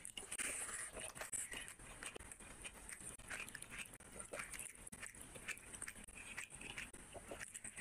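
Close-miked eating sounds: irregular wet clicks and squelches from a hand mixing rice with curry, and from a mouth chewing.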